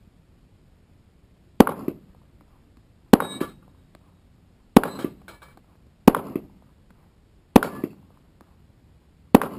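Six handgun shots, one about every one and a half seconds, each followed a moment later by a clang from a steel target plate being hit.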